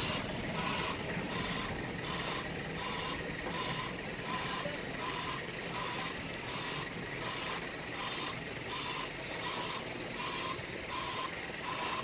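Vehicle reversing alarm beeping at a steady rate, nearly twice a second, with a hissy edge to each beep, over a low rumble.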